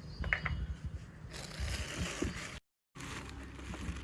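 Hand handling of pressure-washer accessory parts and their packaging: a couple of light clicks, then a scraping, rustling noise that breaks off briefly and carries on.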